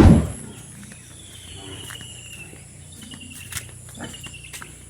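Outdoor farmyard ambience: a steady high-pitched insect drone, with a thin, slightly falling whistle repeated several times, likely a bird. A short low thump opens it, the loudest sound present.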